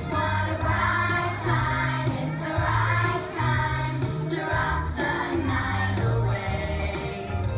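Kindergarten children singing together as a choir over an instrumental accompaniment with a steady bass line; the voices come in at the start.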